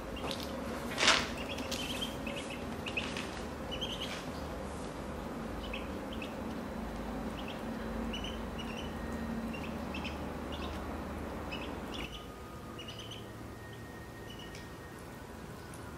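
Ducklings peeping in short, high chirps scattered throughout, with one sharp click about a second in.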